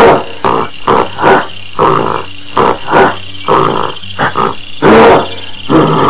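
Gorilla giving a quick series of short grunting calls, about two a second, some louder than others.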